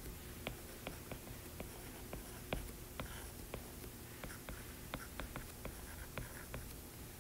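Stylus tip tapping on a tablet's glass screen during handwriting: faint, irregular clicks, two or three a second, over a low steady hum.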